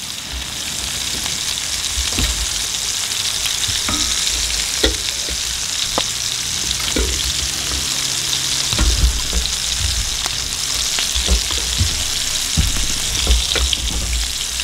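Sausage patties frying in bacon grease in a cast-iron skillet: a steady crackling sizzle. A wooden spoon scrapes and taps against a pan now and then as scrambled eggs are scooped out.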